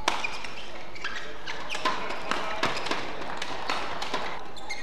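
Badminton rally: sharp cracks of rackets striking the shuttlecock, irregularly spaced a fraction of a second to a second apart, mixed with players' footfalls on the court, over the steady hum of the arena.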